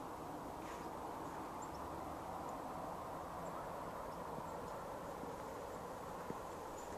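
Outdoor background ambience: a steady, faint rushing noise with a few tiny, faint high chirps, likely small birds.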